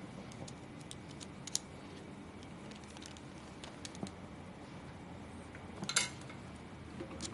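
Scattered small clicks and taps of hard parts and tools being handled while a graphics card is taken apart, with a louder clatter about six seconds in, over a steady low hum.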